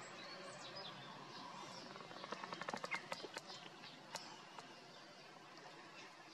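Faint bird calls, short high chirps, over a steady background hiss, with a quick run of about a dozen sharp clicks a little over two seconds in.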